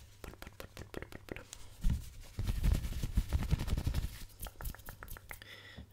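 Hands rubbing and brushing right against a microphone's foam cover, giving loud, muffled, low rumbles from about two to four seconds in. Quick crackly clicks run on around them.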